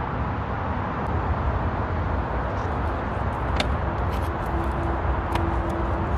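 Steady low rumble of a car, with a few faint clicks and, from about four seconds in, a faint steady hum.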